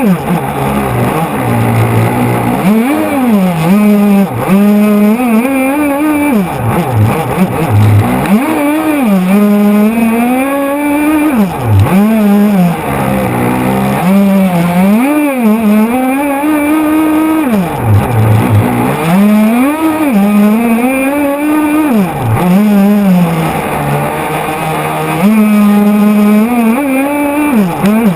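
RC boat's motor running hard, its pitch rising and falling again and again as the throttle is opened and eased off.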